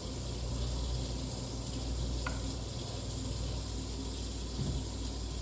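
Craftmade CXL ceiling fan running steadily: a low motor hum under an even airy hiss, with a brief faint click about two seconds in.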